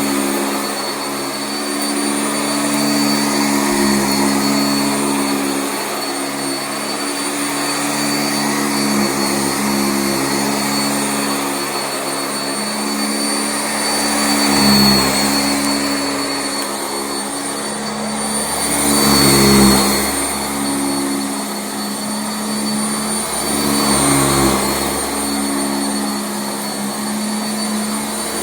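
Sanitaire SC679J commercial upright vacuum running on carpet: a steady motor hum with a high whine, swelling briefly a few times.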